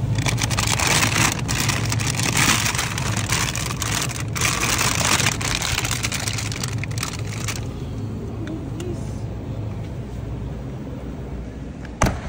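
Crinkly rustling of a plastic bag of frozen steak fries being handled at an open freezer case for the first seven seconds or so, over a steady low hum. A single sharp knock comes near the end.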